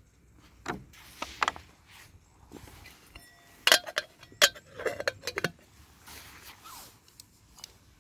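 Aluminium lid being fitted onto an aluminium camping kettle: a few light metal ticks, then a cluster of louder clinks and taps about halfway through as the lid is set down and seated, one with a brief metallic ring.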